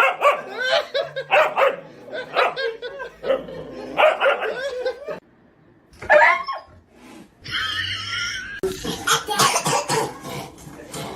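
Dogs barking and yipping in many short calls. There is an abrupt break about five seconds in, after which more barks follow.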